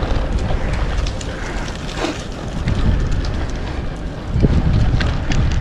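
Wind rushing over the microphone of a bicycle going fast downhill, with scattered clicks and knocks from the bike. The wind gets louder for about the last second.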